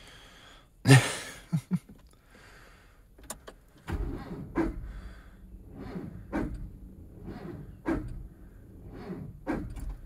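Starter cranking the 1987 Dodge Ram 50's engine from about four seconds in: a low rumble with an uneven beat that does not catch, a cold engine failing to start at about 7 degrees. A sharp knock about a second in.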